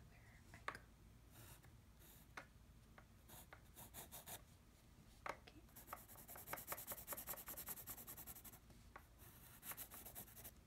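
Faint scratching of a wooden graphite pencil on sketchbook paper as lines are drawn: scattered single strokes at first, then a run of quick back-and-forth strokes from about six seconds in, and another short run near the end.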